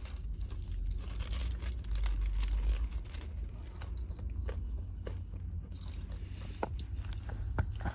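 A person biting into and chewing a shrimp gyro close to the microphone: irregular crunching and wet mouth clicks, over a steady low rumble.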